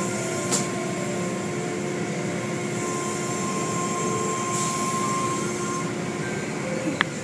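Automatic car wash heard from inside the car: water spraying and soft-cloth curtain strips swishing over the windshield and roof, over the steady hum of the wash machinery. A brief knock sounds about half a second in and another near the end.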